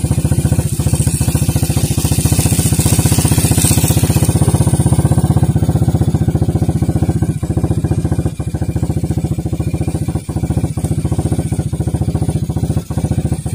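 Small boat engine running steadily with a fast, even putter, dipping briefly a few times in the second half.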